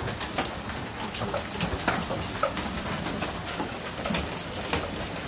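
Hail and heavy rain pelting the porch roof, screens and wooden deck: a dense, irregular patter of sharp ticks and knocks over a steady hiss of rain.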